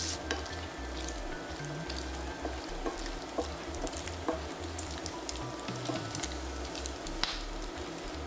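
Bacon frying in hot oil in a skillet: a steady sizzle with many small pops and crackles, stirred now and then with a wooden spatula.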